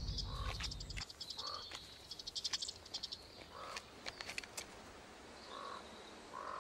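Small animal calls in a forest: rapid trains of high ticking and short chirps repeated every second or two, over faint forest ambience. A low rumble underneath cuts off about a second in.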